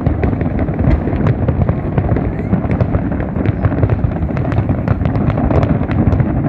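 A dense barrage of fireworks going off without pause: a continuous rumble of booms with many sharp crackles over it.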